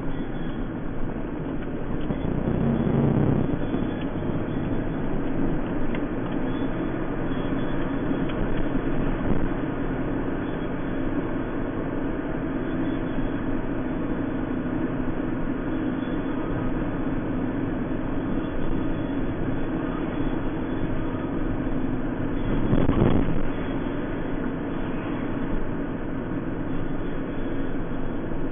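Car driving steadily, engine and tyre noise heard from inside the cabin, swelling briefly twice.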